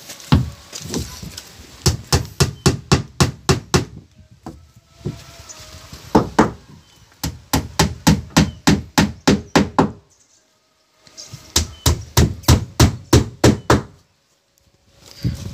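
Claw hammer driving nails into the plywood hull of a wooden boat, struck in quick runs of about four blows a second with short pauses between the runs.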